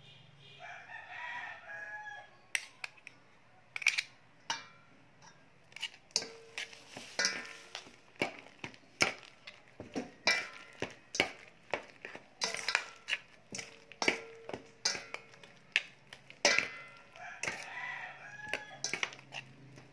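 Metal spoons clinking and scraping against a stainless steel mixing bowl as grated coconut, sugar and margarine are mixed, in quick irregular clicks; the bowl rings briefly twice. A rooster crows at the start and again near the end.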